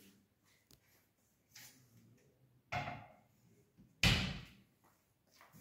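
Modular kitchen base cabinets being worked: a knock about three seconds in and a louder bang just after four seconds, as a cabinet door is shut and a handleless pull-out unit is yanked open.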